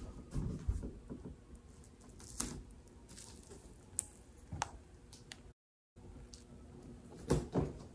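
Handling noises of a large 55-inch TV panel in plastic wrapping being lowered and laid flat on a quilted bedspread: light rustling with scattered soft knocks and a few sharp clicks. The sound drops out completely for about half a second a little past the middle.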